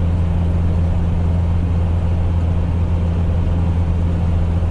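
GAZelle light truck heard from inside its cab while cruising at a steady speed: a constant low engine and drivetrain drone with tyre hiss from the wet road.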